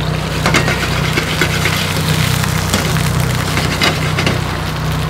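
Squid pieces and garlic sizzling and crackling in hot olive oil in a frying pan as they are stirred, with a dense run of small pops. A steady low engine drone runs underneath.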